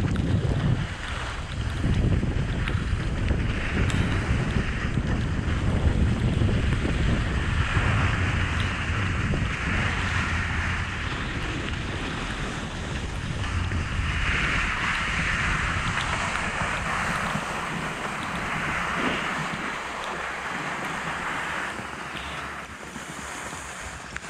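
Wind buffeting the microphone of a camera riding down a ski slope, with the hiss of sliding over packed snow that swells and fades as the rider turns. The low wind rumble thins out over the last several seconds as the rider slows.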